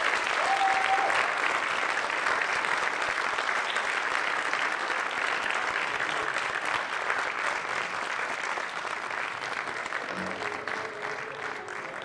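Audience and cast applauding, loudest at first and slowly thinning out. About ten seconds in, music begins under the fading clapping.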